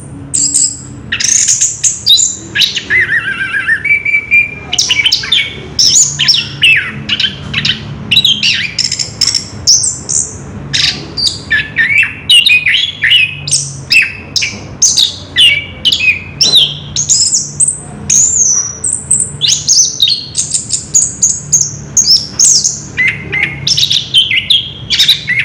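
Orange-headed thrush singing a continuous, rapid song of varied whistles, trills and chirps with hardly a pause, the unbroken 'rolling' delivery bird-keepers call ngerol.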